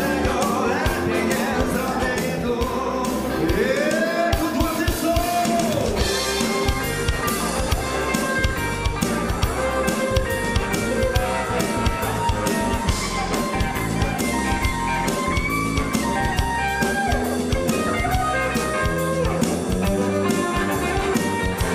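Band music from electric guitar and drum kit playing a steady beat, with one long gliding note a few seconds in.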